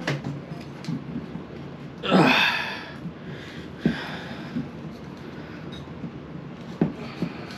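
A man's loud, breathy exhale about two seconds in, among a few sharp clicks and knocks from handling an old bathroom exhaust fan and its wiring.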